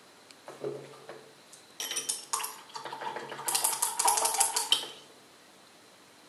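Paintbrushes, tins and jars clinking and rattling as they are handled, a few soft knocks at first, then a busy clatter of hard clicks for about three seconds that stops suddenly.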